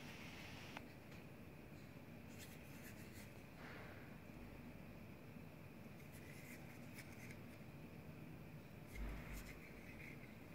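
Faint clicks and rubbing from a Benchmade Griptilian folding knife being worked in the hand, coming in small clusters a few seconds apart, with a soft low bump near the end.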